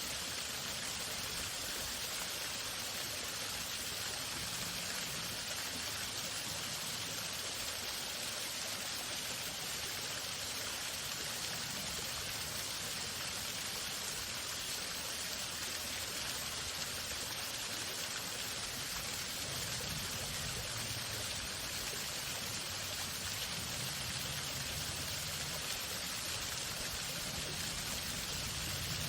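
Waterfall rushing steadily, an even hiss of falling water that never lets up.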